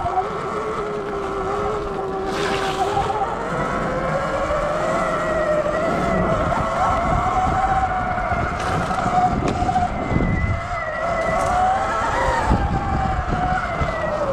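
Sur Ron Light Bee X electric dirt bike's motor whining as it rides a trail, the pitch climbing over the first few seconds, holding, dipping and rising again, then falling near the end as the bike speeds up and slows. Underneath is a low rumble with scattered knocks from the bike going over rough ground.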